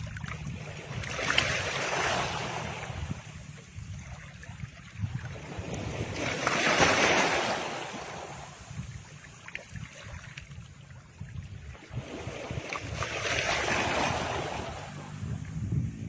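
Ambient background soundtrack: a rushing noise that swells and ebbs three times, about every six seconds, over a low steady drone.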